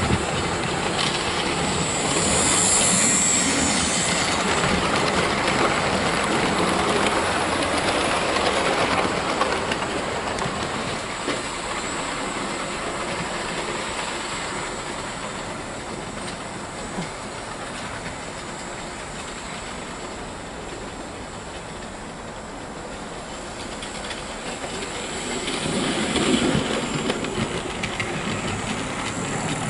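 Hornby OO gauge model steam locomotive and its coaches running along the layout's track, the wheels clicking over the rails. It is loudest as the train passes close a couple of seconds in, dies down through the middle, and grows louder again as the locomotive approaches near the end.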